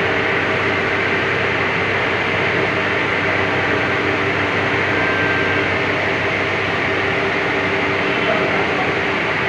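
Steady running of a workshop machine: a constant mechanical whir with a low electric hum, unchanging throughout.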